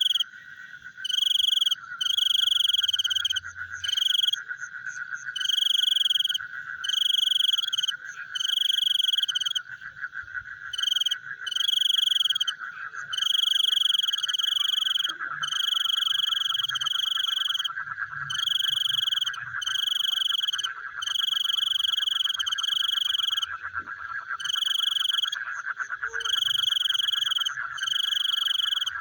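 Frogs calling at night with insects: a loud, high-pitched call repeated in short bouts about once a second, over a steady, continuous trilling chorus.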